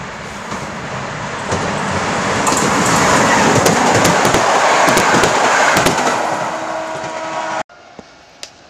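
TLK passenger train hauled by an SU160 diesel locomotive passing at speed: the rushing rail noise grows louder as it approaches and peaks as the coaches go by, with repeated sharp clicks. Near the end the sound cuts off abruptly to a quiet outdoor background.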